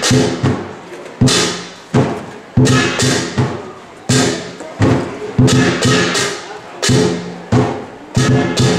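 Lion dance percussion: a big drum beaten together with crashing hand cymbals, roughly two strikes a second, each crash ringing away before the next.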